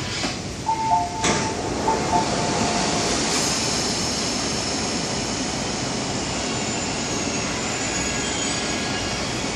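SP1900 electric train's passenger doors opening: a two-note door chime sounds twice, with a sharp clunk about a second in as the doors release and slide open, then steady background noise.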